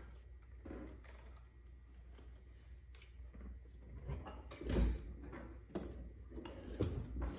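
Parts being handled: scattered light clicks and clunks, the loudest a dull knock about five seconds in, over a low steady hum.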